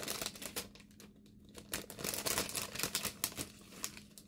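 Paper packaging rustling and crinkling with small irregular clicks as a little papercraft gift box is handled and opened.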